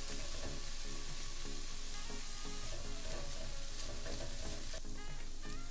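Shrimp and chopped green onion sizzling in oil in a nonstick frying pan as a spatula stirs them, with background music playing over it.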